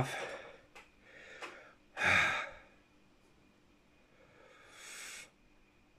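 A man breathing out hard through the mouth: one loud breath about two seconds in and a softer one near the end. He is breathing through the burn of a freshly eaten Trinidad Moruga Scorpion pepper.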